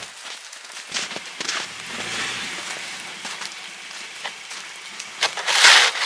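Footsteps crunching in fresh snow, then a plastic snow shovel scraping snow across a wooden deck. The scrape near the end is the loudest sound.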